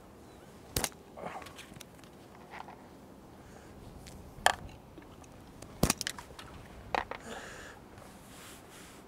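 A few sharp, isolated clicks and knocks, unevenly spaced, over a low steady background.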